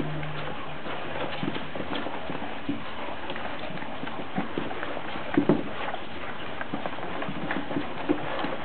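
Puppies' claws clicking and scrabbling as they move about, many small taps over a steady hiss, with two louder knocks about five and a half seconds in.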